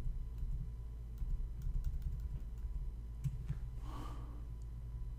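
Steady low hum with scattered faint tapping clicks, and one short exhaled breath about four seconds in.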